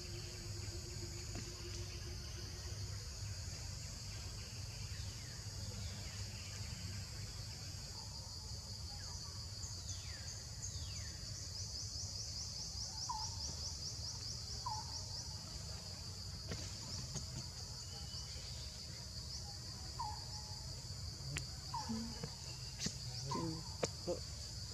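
Forest ambience: a steady high drone of insects over a low rumble, with a trilling pulse in it about halfway through. A few short high chirps and a couple of quick falling calls come in the second half.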